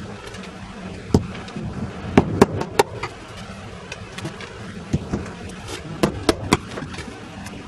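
Small hammer tapping nails through new leather into an antique wooden fireplace bellows, a few sharp taps scattered through, with three quick taps near the end, over a steady low hum.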